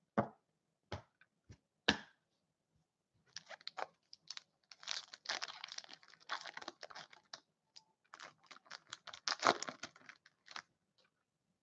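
Trading cards being handled in plastic sleeves and wrappers: scattered light clicks and short crinkly rustles, a few at first and then a busy run of them from about three seconds in.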